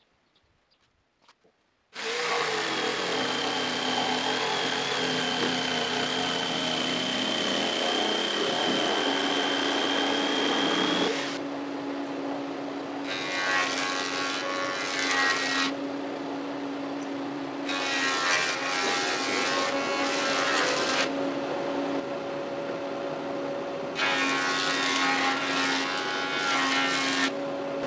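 A power tool starts about two seconds in and runs steadily with a high whine. From about eleven seconds in, three stretches of louder, hissing noise come in as it cuts into wood.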